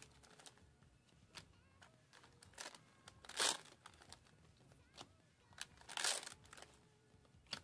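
Foil trading-card booster pack wrappers crinkling and being torn open, with two louder rips about three and a half and six seconds in and light clicks and rustles between.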